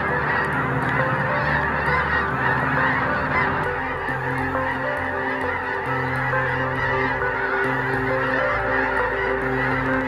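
A huge flock of snow geese calling all at once: a dense, unbroken din of overlapping honks.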